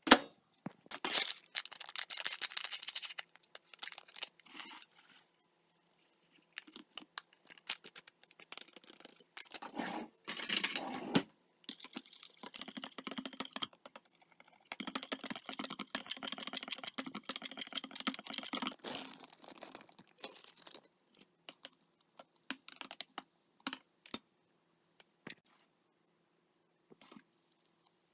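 Kitchen handling sounds of making a mug of instant hot chocolate: microwave buttons pressed, then a knife stirring cocoa in a ceramic mug, scraping and clinking. The sounds come in short spells of clicks and scraping with silent gaps between them.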